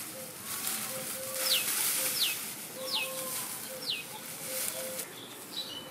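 Dry straw rustling and crackling as bundles are pulled from a stack, loudest in the first half. Over it a bird gives four short falling whistles, a little under a second apart, and a short low note repeats in the background.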